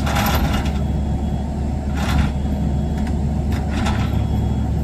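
Heavy truck engine running with a steady low rumble, with three short hisses about 2 s apart.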